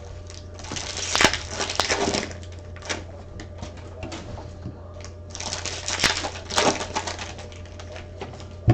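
Crinkling and rustling of trading card packaging and cards being handled. It comes in two spells, about a second in and again from about five to seven seconds, with a sharp click near the end.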